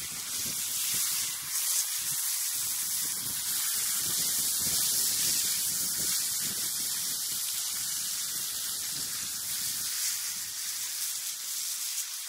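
Bacon sizzling in a frying pan over a small open fire, a steady high hiss.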